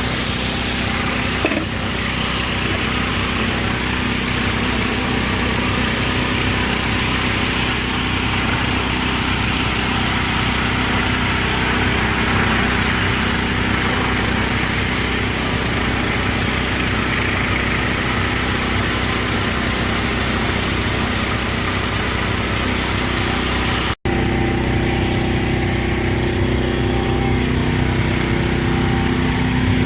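A pressure washer's small gasoline engine running steadily, cutting out for an instant once near the end.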